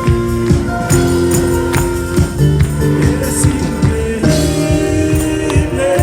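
Live band music with sustained chords over a steady drum beat, with tambourine.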